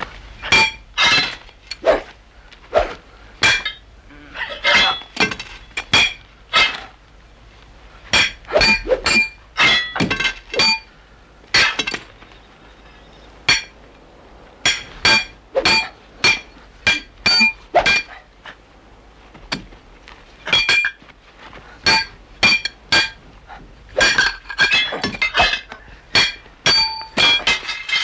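Curved swords clashing in a sword fight: a long series of sharp metallic clangs with a ringing tone, struck in quick flurries of several blows separated by brief pauses.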